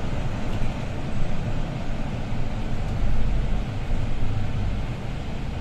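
Setra S415 LE business diesel bus heard from inside near the front, its engine and running noise steady as it drives at low speed. The low rumble swells briefly about three seconds in.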